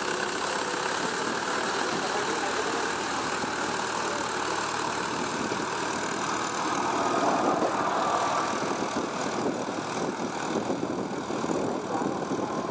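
Mahindra 575 DI tractor's four-cylinder diesel engine running steadily under load while its steel cage wheels churn through flooded paddy mud, dragging a leveling beam. From about seven seconds in, the sloshing of wheels and mud becomes rougher and more uneven.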